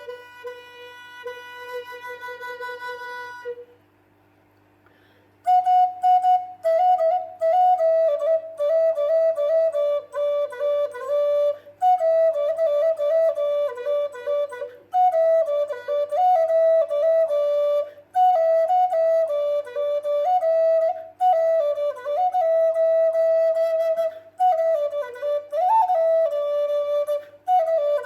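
Solo flute playing a light, playful melody: a held low note, a pause of nearly two seconds, then quick phrases of short notes that keep rising and falling.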